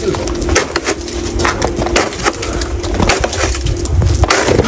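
Rapid, irregular crunching and cracking of packed snow, over a low rumble and a steady hum.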